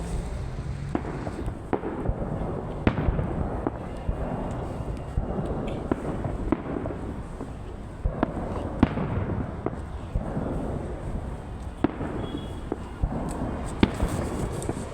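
Fireworks display: shells bursting in a rapid, irregular string of sharp bangs, several a second at times, over a continuous crackling rumble.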